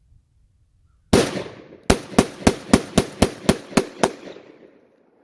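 Tokarev Monster 101 12-gauge semi-automatic bullpup shotgun firing ten shots: one, a short pause, then nine in rapid succession at about four a second, with echo dying away after the last. The shotgun is cycling cheap field loads through its 10-round aftermarket magazine without a malfunction.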